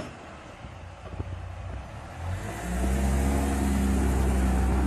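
A car's engine, faint at first, picks up about two and a half seconds in as the car pulls away, then holds a steady low drone.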